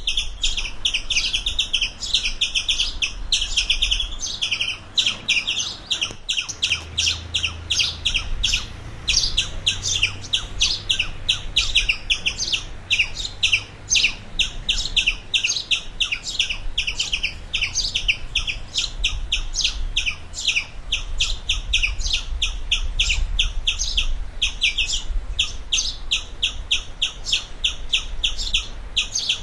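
A squirrel's repeated chirping call: a rapid, steady string of short, high-pitched chirps, several a second, over a low rumble.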